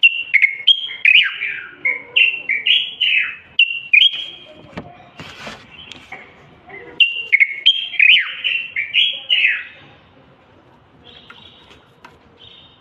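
Common bulbul (Moroccan bulbul) singing: quick phrases of short fluty whistles that slide down and up. The song comes in two loud runs of about three to four seconds each, with softer notes between them and a quieter spell near the end.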